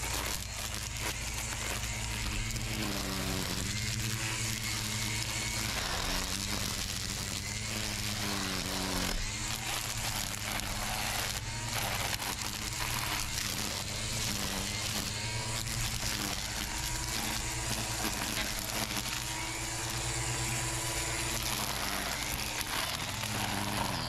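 Electric string trimmer running steadily as it cuts weeds. Its motor whine dips and rises about once a second over a constant hiss of spinning line.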